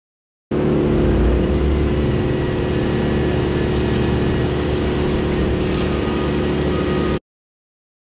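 An engine running steadily at a constant pitch, starting and cutting off abruptly.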